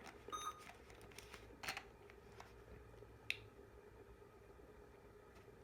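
Near silence: a faint steady hum with a few soft clicks and taps, one about half a second in with a brief ring, others near the middle.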